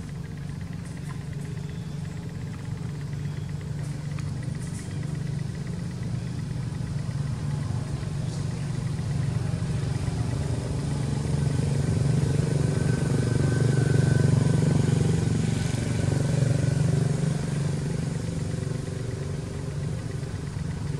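A motor vehicle's engine running steadily, growing louder toward the middle and then fading again.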